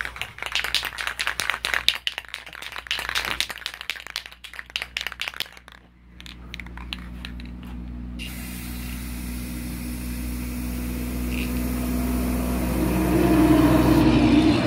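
Aerosol spray paint can shaken, its mixing ball rattling rapidly for about five seconds. Then the can sprays with a steady hiss that grows louder toward the end.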